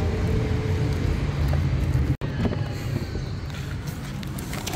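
Road vehicle noise: a steady low rumble, broken by a brief sudden dropout about two seconds in.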